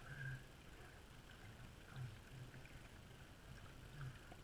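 Near silence: faint outdoor quiet with a few soft, short low sounds.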